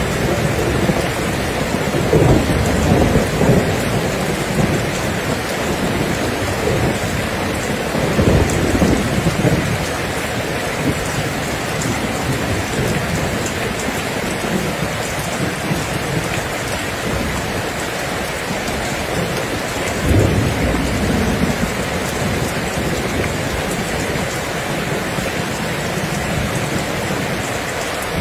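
Steady rain falling, with low rolls of thunder rumbling under it, the strongest about two, eight and twenty seconds in.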